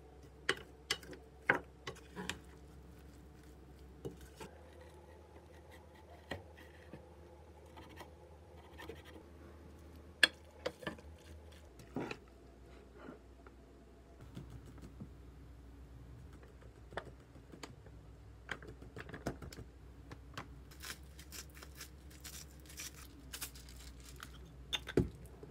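Wooden spoon stirring shredded vegetables in batter in a bowl, with irregular clicks and scrapes against the bowl. Near the end a pepper mill grinds in a quick run of clicks, followed by a sharp knock.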